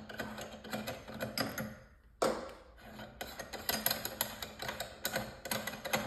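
Rapid small clicks and metal rattling as the handles and shrouds are worked off a brass concealed thermostatic shower valve, with one sharper knock about two seconds in.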